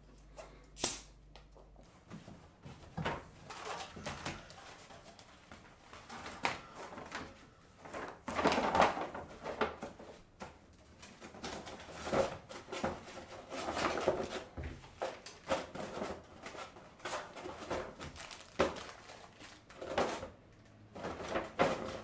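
Handling noises: a sharp click about a second in as a plastic soft-drink bottle cap is twisted open, then a long run of light clicks, knocks and rustles as empty plastic food containers are gathered and packed into a paper bag.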